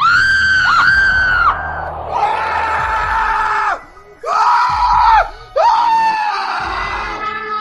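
A series of about five shrill screams in quick succession, each rising and then falling in pitch, with short breaks between them.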